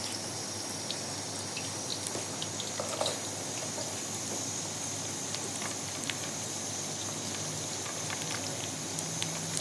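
Food sizzling as it fries in a pan: a steady hiss with scattered small pops and crackles.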